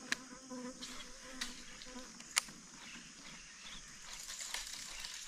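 A flying insect buzzing in a steady low hum for about the first two seconds, over a faint high background hiss. A few sharp light clicks come through, the loudest about two and a half seconds in.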